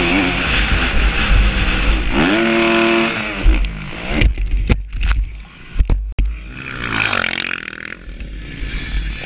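Motocross bike engine running hard, heard from the rider's helmet camera. Its pitch rises about two seconds in, then comes a run of sharp knocks with the engine sound cutting in and out between about four and six seconds in, before the engine picks up again.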